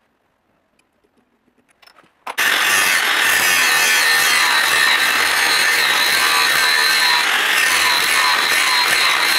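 Angle grinder's abrasive disc cutting through a metal shaft, starting suddenly a little over two seconds in and then running loud and steady with a high whine. Before it, near silence with a few faint clicks.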